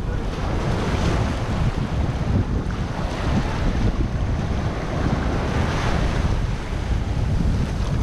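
Shallow surf washing in and out over the sand, a steady rushing wash, with wind buffeting the microphone and adding a heavy low rumble.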